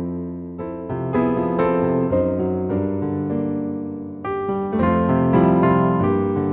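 Background piano music, a Christmas tune of single notes and chords played in quick succession.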